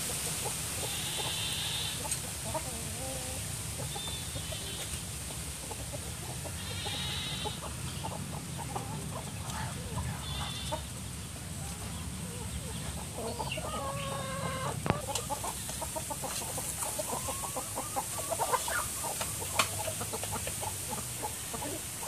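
Chickens clucking and calling as they forage, in short scattered calls that grow busier in the second half. A sharp click sounds about fifteen seconds in.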